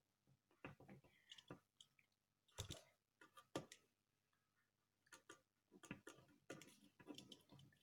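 Faint, irregular scratching and tapping of ballpoint pens writing on paper laid on a glass tabletop, with a few sharper taps about two and a half and three and a half seconds in.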